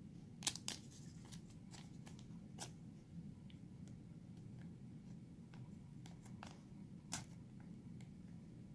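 Faint scattered crinkles and clicks of a clear plastic card sleeve being handled as a trading card is slid into it, over a low steady hum.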